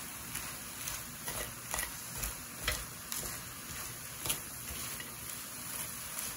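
Dried shrimp and pecans sizzling lightly in a stainless steel pan, with irregular clicks and scrapes of chopsticks stirring them against the pan.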